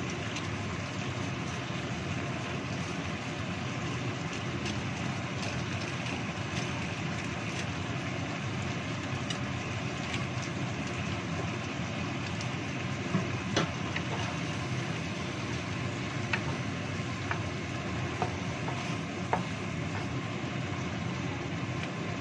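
Chicken cooking in coconut-milk sauce in a wok on a gas stove: a steady simmering sizzle with a few small pops scattered through it.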